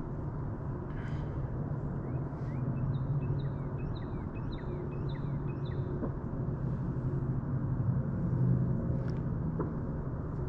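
Steady low rumble, with a bird singing a quick run of repeated chirping notes from about three to six seconds in.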